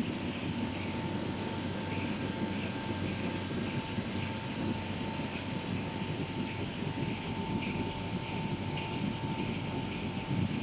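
A six-colour flexo printing machine running steadily as it feeds printed plastic film over its rollers. It makes an even mechanical rumble with a constant whine and faint ticks repeating about every half second.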